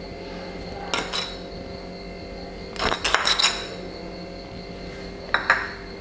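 Metal spoon clinking against a glass mixing bowl in three short bursts, about a second, three seconds and five and a half seconds in, as salt is added to the dry batter mix.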